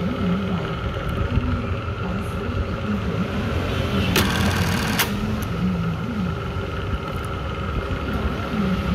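Jack industrial button-sewing machine, its motor humming steadily, with one short burst of rapid stitching about four seconds in, lasting under a second, as it runs a cycle to sew on a button.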